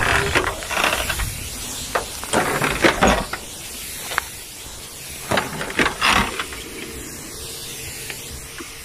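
Weed-killer sprayer wand hissing in several uneven bursts as the spray is turned on and off over the weeds.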